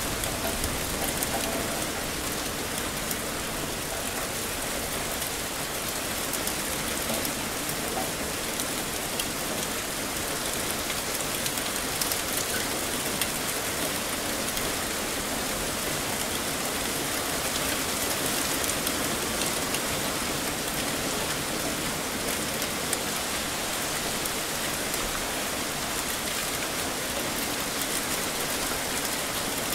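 Heavy rain falling steadily: an even hiss with small drop impacts scattered through it.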